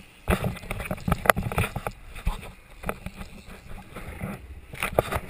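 Fishing boat out on the water: a dense run of irregular knocks and rattles over a low steady hum, starting abruptly a moment in.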